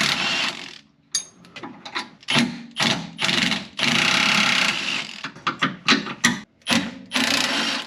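Ratchet wrench being worked on a bolt, clicking in a string of short bursts with a longer run about four seconds in.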